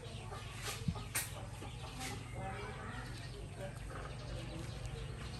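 Faint short animal calls over a steady low hum, with a few sharp clicks about one and two seconds in.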